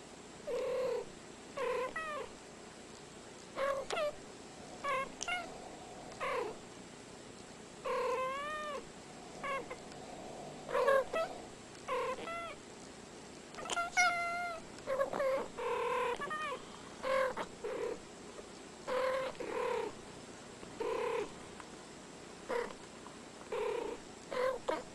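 Two domestic cats trading short meows back and forth, roughly one call a second with brief pauses between them; many calls bend up and down in pitch.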